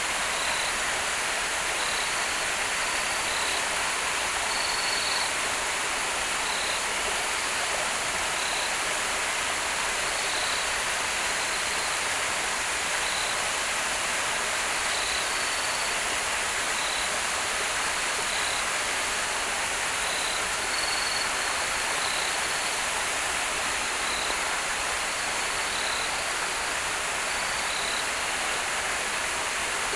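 Steady rushing of a river flowing, with short high chirps repeating irregularly every second or two over it.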